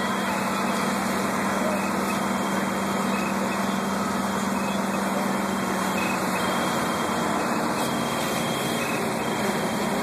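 Fire apparatus diesel engines running steadily at the fire scene: a low, even hum that fades about two-thirds of the way through, under a steady rushing noise.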